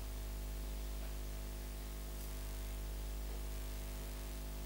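Steady electrical hum with a layer of hiss, unchanging throughout.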